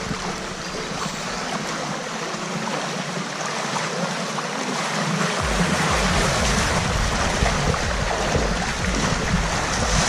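Rushing stream water, a steady hiss. About halfway through, a low rumble joins it.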